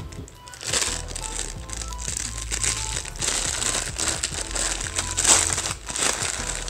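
Clear plastic packaging crinkling in several bursts as cables and parts are handled, over background music.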